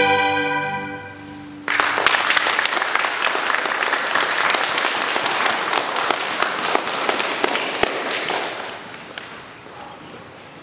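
A violin ensemble's last held chord fading away, then the audience suddenly starts applauding a little under two seconds in; the clapping holds steady and tapers off near the end.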